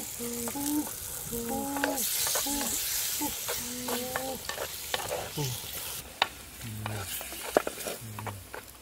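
Chicken gizzards sizzling in a clay pot over a wood fire while being stirred with a wooden spatula: scraping knocks of the spatula against the pot and a frying hiss, loudest in the middle. Short squeaky tones repeat through the first half, and a few low tones come near the end.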